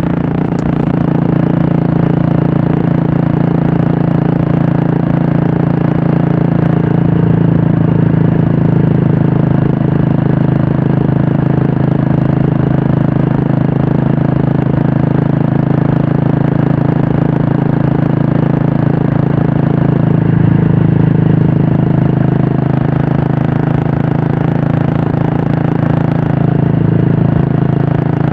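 Royal Enfield Classic 350's single-cylinder engine running steadily through a Red Rooster aftermarket stainless-steel exhaust, a steady low drone that swells slightly a couple of times.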